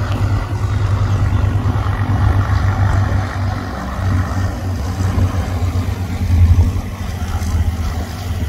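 Cessna 182 Skylane's single piston engine and propeller droning steadily at reduced power on final approach, with a strong low rumble.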